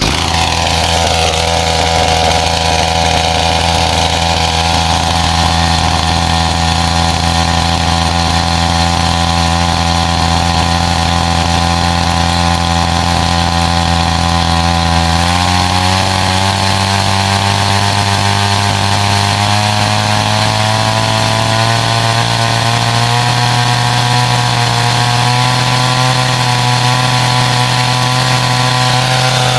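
Cheap two-stroke gas chainsaw catching on a cold start and idling steadily. About halfway through the engine note steps up and then keeps rising slowly.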